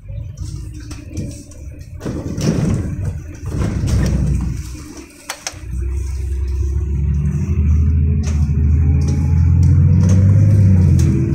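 LiAZ-5292 city bus engine heard from inside the passenger cabin, with a few sharp rattles early on. About halfway through, a low, even engine hum builds up and grows louder as the bus accelerates.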